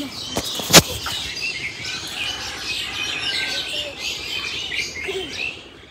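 A chorus of many small birds chirping and calling at once, busy and overlapping, with a single sharp knock a little under a second in.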